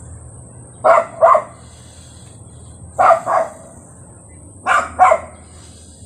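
A dog making three pairs of short, loud sounds about two seconds apart, each pair two quick bursts in close succession.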